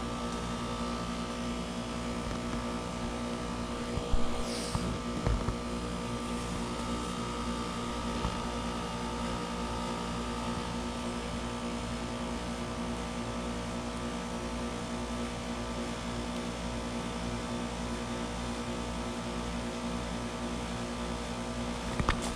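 2017 Ameristar M4HP4 3-ton heat pump outdoor unit running in a defrost cycle: a steady hum with several fixed tones over a constant rushing noise. A few brief thumps come about four seconds in.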